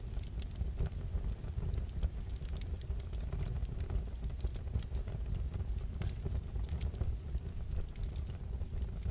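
Wood fire crackling in a fireplace: irregular small pops and snaps over a steady low rumble.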